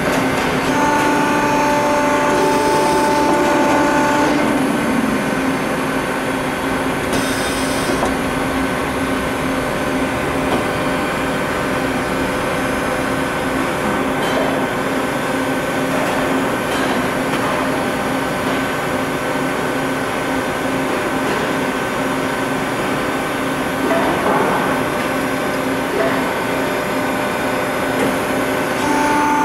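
Peddinghaus TDK 1000/3G three-spindle beam drill line running: a steady mechanical hum and whine with constant tones, with a few higher tones and a short falling pitch in the first few seconds.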